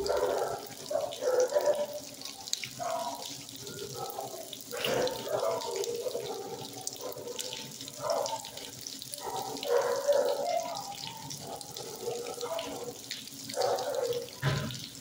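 Water running steadily, with indistinct voices and kennel noise in the background.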